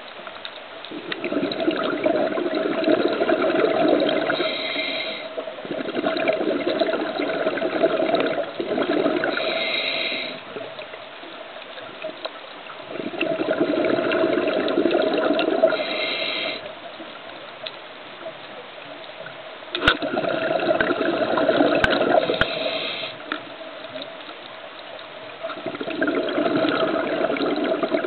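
Scuba diver's breathing through a regulator underwater: about five long bursts of exhaled bubbles gurgling past the microphone, each lasting a few seconds, with quieter inhalations between.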